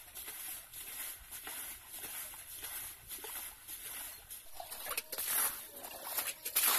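Water splashing in irregular dashes as buckets of it are thrown out of a pond being bailed, with louder splashes in the last couple of seconds.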